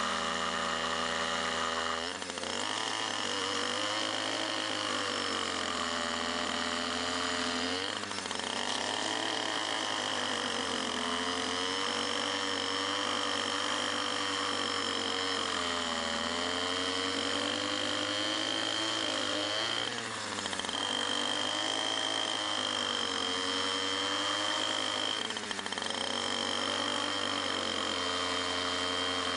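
Roothog root-cutting wheel on a powered edger running steadily while it grinds through a surface tree root, the motor's pitch sagging and recovering under the load of the cut, with a steady high whine over it.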